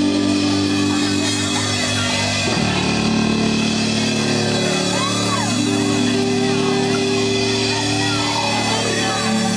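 Live rock band playing loud and steady, held chords shifting every few seconds, with a few voices shouting or whooping over the music.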